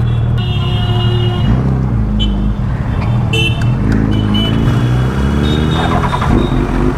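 Suzuki GSX-R1000 inline-four idling with a steady low hum, amid street traffic with several short horn beeps. Midway an engine note rises in pitch over a couple of seconds.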